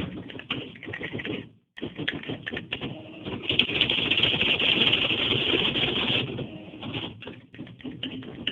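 TA Adler 325 electronic typewriter: separate keystroke clicks, then from about three seconds in a fast, continuous rattle for about three seconds as the machine prints out the line held in its memory, then single clicks again.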